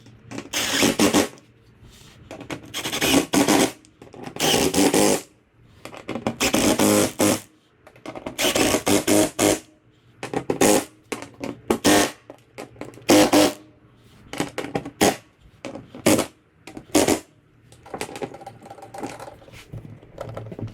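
Splitter mounting bolts being tightened with a tool in repeated bursts about a second long, which turn into shorter, sharper strokes about halfway through and grow softer near the end.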